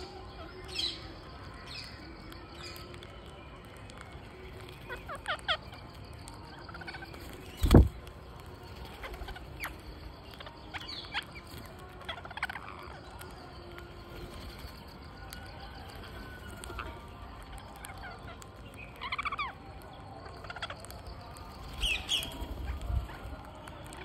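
Birds calling, with scattered short chirps and calls and a few falling call clusters later on. A loud thump comes about eight seconds in.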